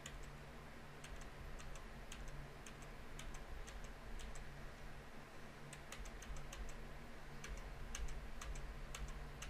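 Computer mouse clicking faintly in short irregular runs of sharp clicks while MIDI notes are drawn in, over a low steady hum.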